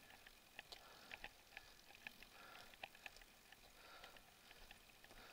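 Near silence with faint, irregular small ticks and clicks; no engine is running.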